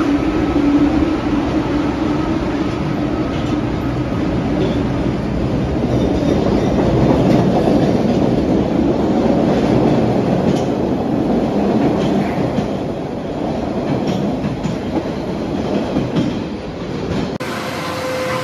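MBTA Red Line subway train moving along an underground station platform. A steady motor whine at first gives way to the rumble and clatter of wheels on rails, which swell through the middle and ease off; the sound changes abruptly near the end.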